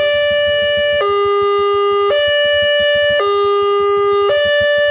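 Railway level-crossing warning alarm sounding a two-tone electronic chime that switches between a higher and a lower note about once a second, warning that a train is approaching while the crossing's red lamps flash.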